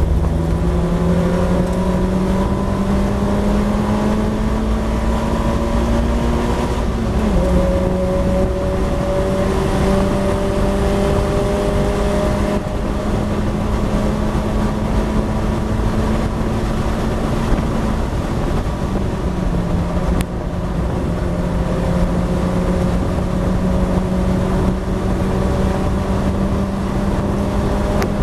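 Race car engine under hard acceleration heard from the cockpit, over wind and road noise. The revs climb slowly, drop sharply about seven seconds in at an upshift, then climb again; around eighteen seconds in the note falls off for a moment before it pulls and climbs once more.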